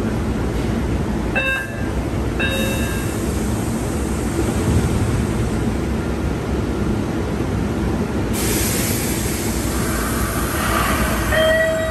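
MBTA subway train running, a loud steady rumble of wheels on rail. Short high wheel or brake squeals come about a second and a half in and again at two and a half seconds, and a louder squeal builds near the end.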